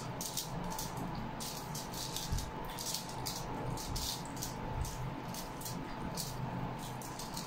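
Mukbang eating sounds of two people eating with their hands: irregular crisp clicks and crackles from chewing and from fingers picking rice and dried fish (tuyo) off a foil-lined tray, over a faint steady hum.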